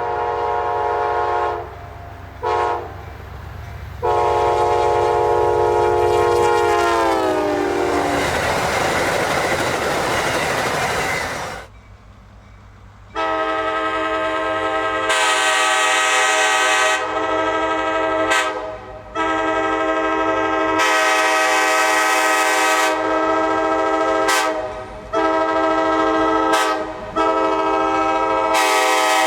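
Nathan K5LA five-chime locomotive horn. It gives a blast, a short toot, then a long blast whose chord drops in pitch as the train passes, followed by the rush of the passing train. After a short pause, a K5LA sounds a series of long and short blasts at a steady pitch.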